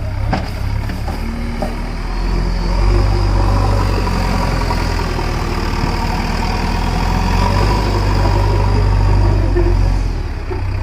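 Heavy diesel engine running steadily, getting louder about two seconds in and holding there.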